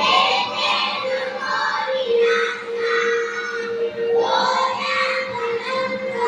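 A group of young children singing a patriotic song together, holding long sung notes in phrases.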